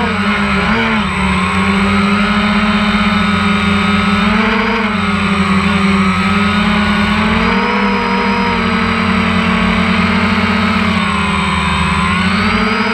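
DJI Phantom 1 quadcopter's electric motors and propellers whirring steadily, picked up loud and close by the camera mounted on the drone. The pitch rises and dips a little as the motors change speed to hold the drone in flight.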